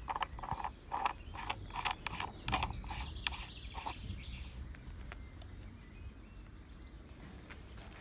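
Brush cutter's line head being turned by hand to wind in square nylon trimmer line, its ratchet clicking about three times a second. The clicking stops about halfway through.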